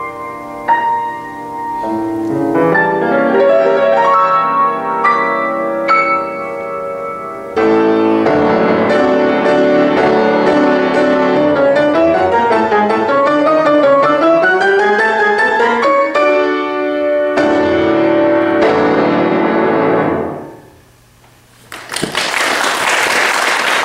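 Solo grand piano playing the closing passage of a piece. It builds to a loud, dense stretch of notes, then thins out to a final chord that rings and fades. After a short pause, applause starts about two seconds before the end.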